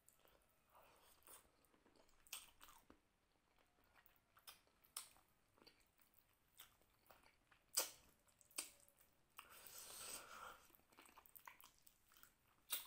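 Close-miked mouth sounds of a man eating rice and mutton curry by hand: faint wet chewing with scattered clicks and smacks, one sharper click about eight seconds in and a longer rustling stretch about ten seconds in.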